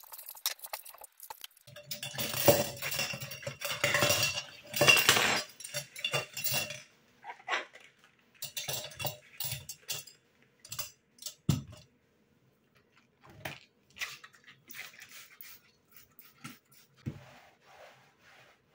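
Dishes and cutlery clinking and clattering in a kitchen: a busy stretch of clatter over the first several seconds, then scattered clinks and a couple of louder knocks.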